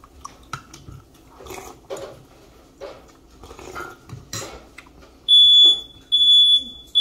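A smoke alarm going off: loud, high-pitched beeps in the three-beep pattern of a fire alarm, starting about five seconds in. Before it there are soft chewing sounds and light clinks of a metal spoon in a bowl.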